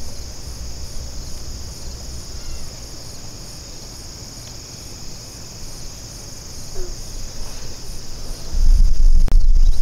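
Steady high-pitched insect chorus of crickets trilling, with a fainter pulsing chirp above it about three times a second. About eight and a half seconds in, a loud low rumble on the microphone comes in over it.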